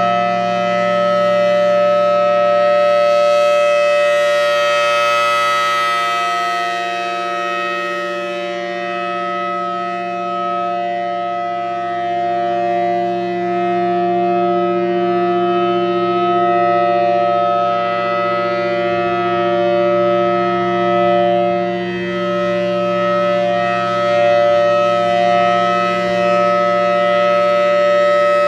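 Federal Signal Thunderbolt 1000T dual-tone outdoor warning siren sounding its steady Alert signal: a loud, unwavering chord that swells and fades slowly as the rotating horn turns.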